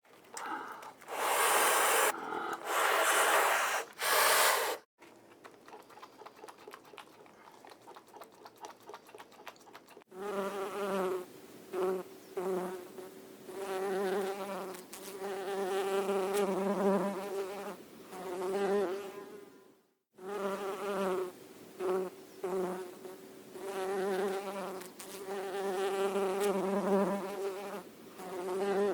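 A flying insect buzzing: a steady hum that breaks off and starts again many times as it comes and goes, in two long runs split by a brief silence about two-thirds through. It is preceded by three loud hiss-like noisy bursts and then faint rapid ticking in the first third.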